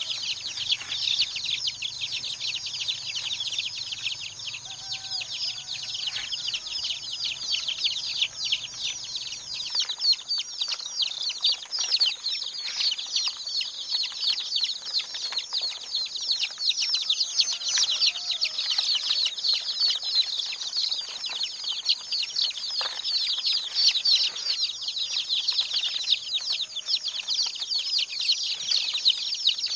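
Many chicks peeping together in a dense, continuous high-pitched chirping.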